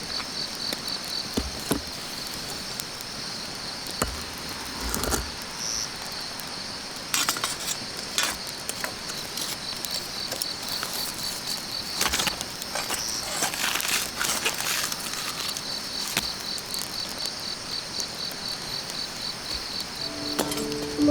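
Insect chirping in a steady, high, pulsing rhythm of about five chirps a second, with scattered rustles and clicks.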